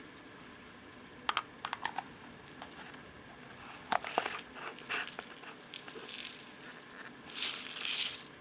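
Coarse Himalayan pink salt crystals going into a plastic spice grinder pod: scattered sharp clicks and rattles of the hard granules, then a longer gritty rush near the end.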